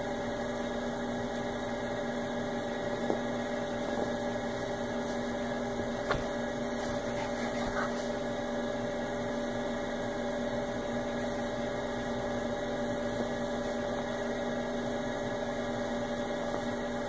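Steady electrical hum, one unchanging buzzy tone, with a few faint soft taps.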